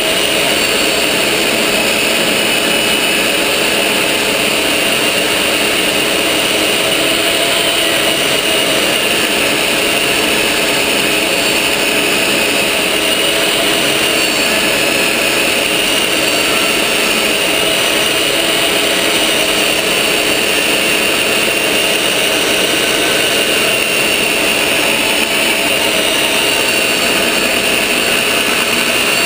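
Table saw running steadily while a long radiator pine board is pushed along the fence over the blade, cutting a quarter-inch-deep dado groove.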